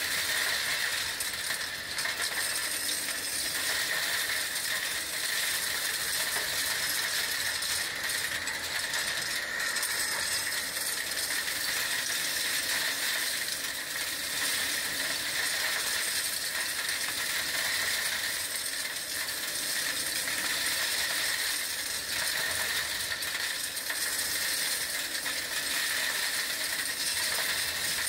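Kärcher industrial vacuum cleaner running steadily as its hose sucks up gravel and rubble, with stones rattling up through the hose.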